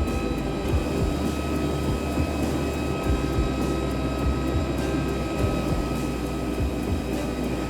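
Airbus A320neo's Pratt & Whitney geared turbofan engines running steadily: a constant whine over a low rumble.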